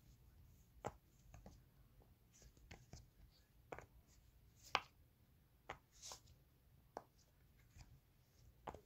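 Fidget toys being clicked and tapped by hand: about a dozen faint, sharp clicks at irregular intervals, the loudest a little before halfway.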